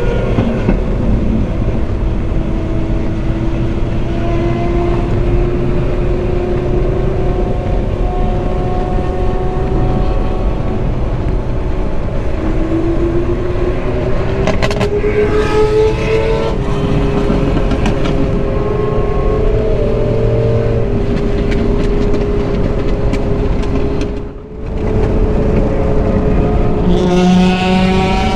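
Ferrari 458 Spider's naturally aspirated V8 running at highway speed under heavy wind and road noise, its pitch slowly climbing and easing back with the throttle. About two-thirds of the way through the sound dips briefly, then picks up again, with a quick rising rev near the end.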